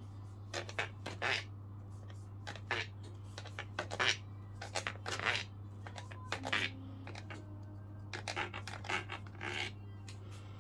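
Knife blade scoring raw baguette dough topped with poppy seeds: a series of about twenty short strokes in small clusters as the blade is drawn through the seeded surface.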